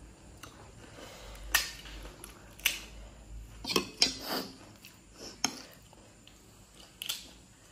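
Metal spoon clinking and scraping against a plate while scooping potato filling for panipuri: about half a dozen sharp, separate clicks spread over several seconds.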